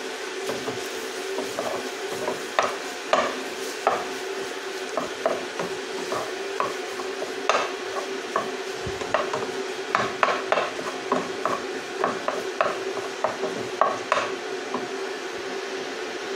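Mince and onions sizzling in a non-stick frying pan while a wooden spatula stirs, scraping and tapping the pan in irregular strokes, over a steady low hum.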